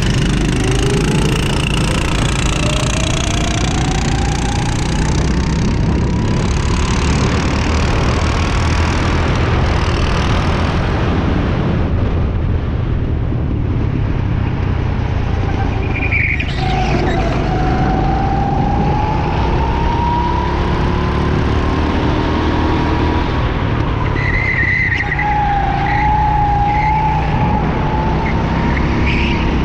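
Go-kart engine running hard under the driver's seat. Its pitch climbs slowly along the straights and drops sharply about 16 seconds in, and again around 25 seconds, as it slows for corners, while a second kart runs close by.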